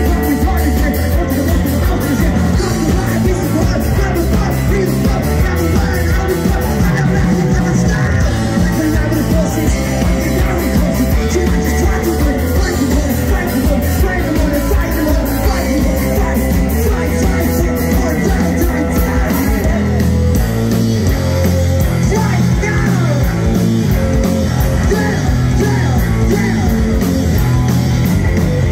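Live rock band playing through a PA: drums, bass guitar and a singer. The music is loud and steady, with no breaks.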